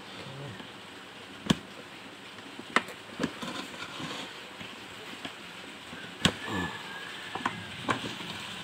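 Plastic bottle being handled while a soldering iron melts holes in it: a handful of sharp plastic clicks and knocks, three of them loud and spread well apart, over a low steady background.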